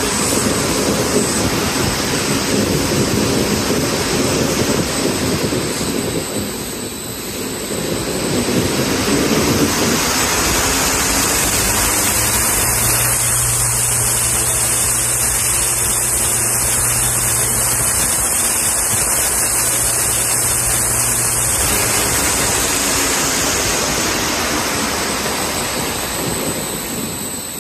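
Large electric exhaust fans of a 900 kW bitcoin-mining building running at speed, a loud steady rush of moving air. A steady low hum joins in about ten seconds in and drops away a little past twenty seconds.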